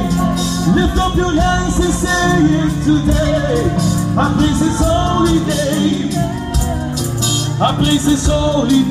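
Loud worship music with a sung vocal line over held bass notes.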